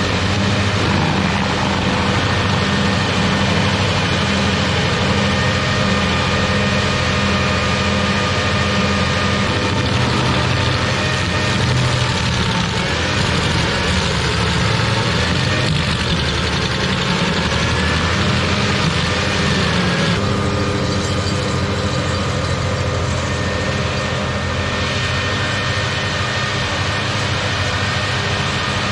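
Carlton 7015 tracked stump grinder running steadily under load, its engine driving the cutter wheel as it grinds into a stump. About twenty seconds in the sound changes and gets slightly quieter as the machine pulls back from the stump.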